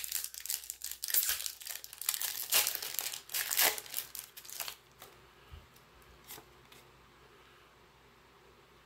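Foil wrapper of a Pokémon Fusion Strike booster pack crinkling and tearing as it is ripped open by hand, in quick irregular strokes that stop about five seconds in. After that, only a few faint ticks.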